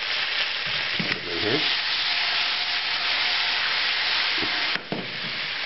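Olive oil sizzling in a frying pan with tortellini that have just come out of simmering water. The sizzle grows louder about a second in as the wet pasta goes into the oil and eases off near the end.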